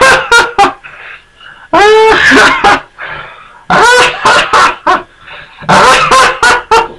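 A high-pitched cartoon voice laughing in four short bouts of rapid "ha-ha-ha" pulses, about two seconds apart.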